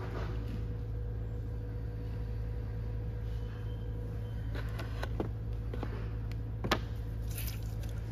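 Steady low hum of an electric pottery wheel's motor, with a couple of short, light knocks about five and six and a half seconds in.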